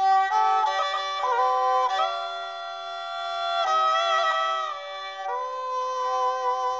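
Instrumental music: a slow melody of long held notes over a steady drone.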